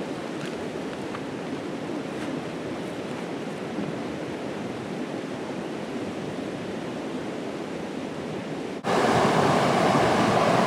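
Rushing river water, a steady even rush that suddenly becomes louder and fuller about nine seconds in.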